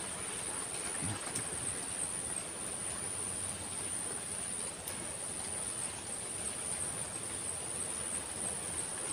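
Insects singing in one steady, high-pitched drone.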